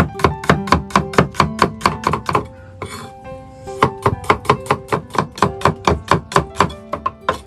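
Cleaver chopping red onion on a thick wooden chopping board: quick, even strokes about five a second, with a short break about three seconds in. Soft background music with sustained notes plays underneath.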